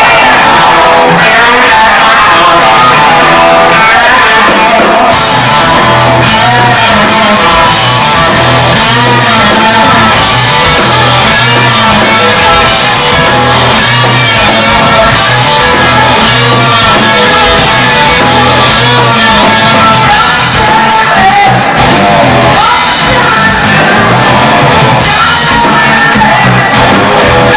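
Live rock band playing a heavy blues-rock number on electric guitars, bass guitar and drums, with shouted, sung lead vocals. The sound grows denser about five seconds in, with a steady bass pulse underneath.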